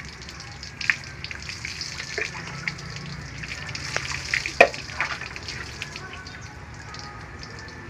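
Water poured from a plastic dipper over a wet dog's coat during a bath, spattering and dripping onto the floor as a steady crackling hiss, with a few sharper splashes, the loudest about halfway through.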